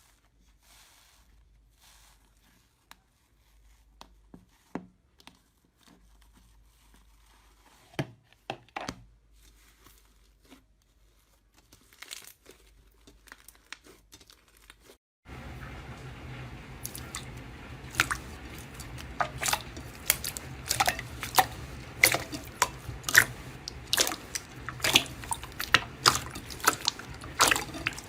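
Slime being handled close to the microphone, making crackling clicks and pops. They are sparse and quiet at first. After a sudden cut about fifteen seconds in, they come thick and sharp over a steady low hum.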